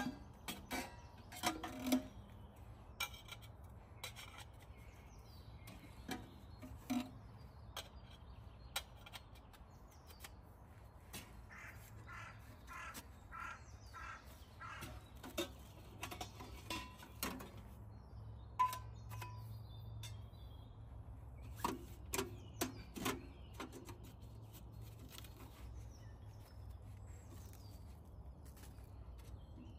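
A crow cawing in a run of about eight calls, roughly two a second, with faint bird chirps and scattered sharp clicks and snaps.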